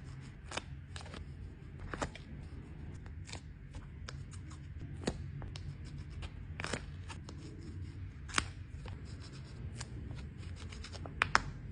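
Paper stickers being handled: crisp crackles, rustles and light taps at irregular intervals as they are peeled from the backing and pressed down, with a cluster of sharper taps near the end.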